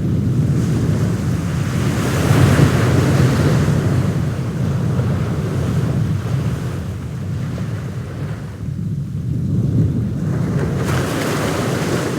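Wind blowing on the microphone over the wash of sea waves. The waves swell louder about two seconds in and again near the end.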